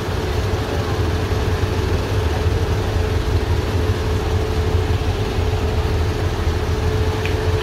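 Off-road 4x4 engine running steadily at idle: a constant low rumble with a steady hum above it.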